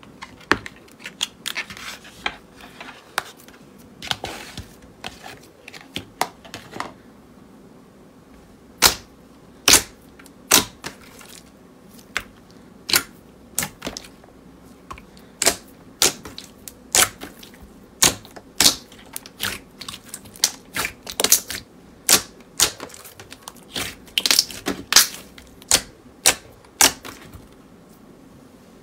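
Gold metallic slime being pressed, folded and stretched by hand, giving sharp wet clicks and pops, irregular, about one or two a second. They are softer and more crackly in the first few seconds and louder from about eight seconds in.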